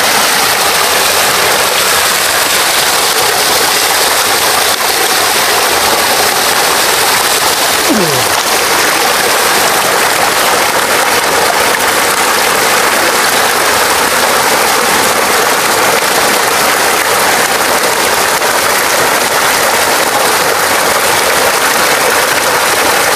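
Water from stone bathing spouts pouring steadily into a spring pool, a constant loud splashing rush.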